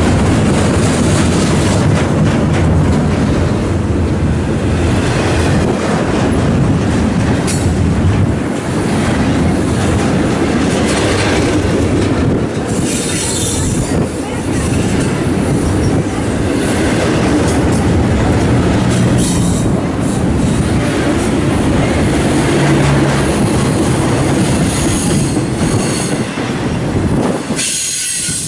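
Union Pacific double-stack intermodal freight train passing close by: a loud, steady rumble of steel wheels on rail with frequent clicks and spells of high-pitched wheel squeal. Near the end the rumble thins and turns hissier as truck trailers on flatcars go by.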